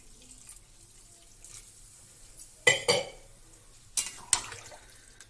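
Steel spatula knocking against a stainless-steel kadai as thin kadhi is stirred: mostly quiet, then two sharp metal clinks a little past halfway and two more about a second later.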